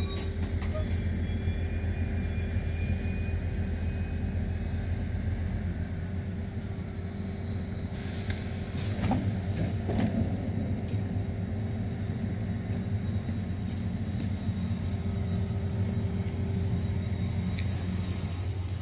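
Steady low rumble and hum of a Mugunghwa-ho diesel-hauled passenger train standing idle, with a few light clicks about nine to eleven seconds in.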